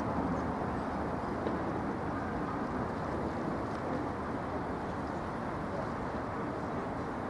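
Steady city street noise: a continuous rumble of road traffic, with no single vehicle standing out.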